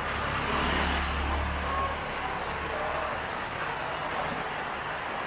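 Heavy rain falling steadily, an even hiss, with a low rumble during the first two seconds.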